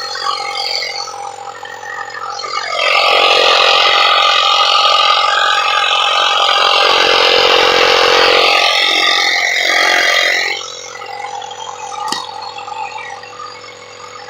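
Portable electric tire inflator's small compressor running steadily with a constant hum and rattle, inflating a freshly plugged car tire; it gets much louder and harsher for several seconds in the middle, then drops back.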